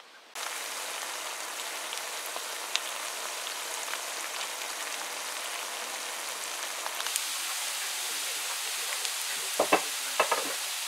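Sliced mushrooms and onion frying in a pan, with a steady sizzle and scattered small pops. The sizzle starts suddenly about half a second in. A few short knocks come near the end.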